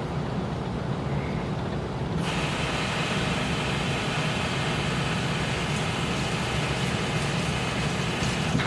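Samsung WA5451AN high-efficiency top-loading washer in its rinse cycle, the drum turning the load of clothes with a steady low rumble. About two seconds in a steady hiss joins it, and it stops just before the end.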